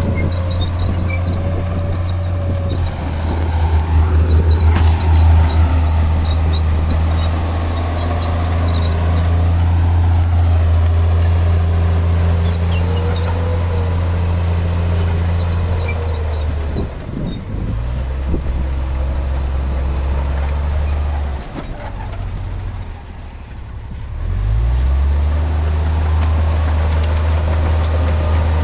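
Heavy diesel engine of earthmoving machinery running steadily under load. Its revs drop twice in the second half, then climb back up near the end.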